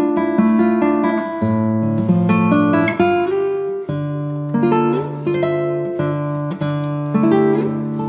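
Background instrumental music: a plucked tune over held low notes.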